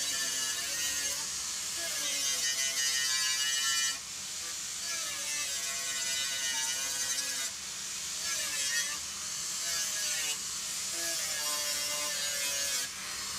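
Electric angle grinder grinding metal, its motor whine wavering in pitch as the disc bites and eases. The sound breaks off and restarts abruptly about every three seconds.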